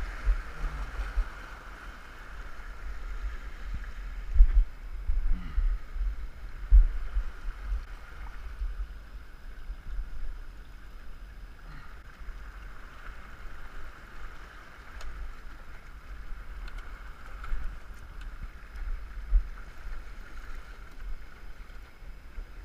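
Wind buffeting the microphone in irregular gusts, over a steady wash of small waves breaking against the rocks.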